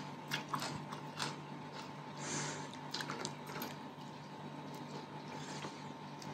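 Quiet eating sounds: rice vermicelli slurped from a fork and chewed, with scattered light clicks in the first few seconds and a short hiss of slurping about two seconds in.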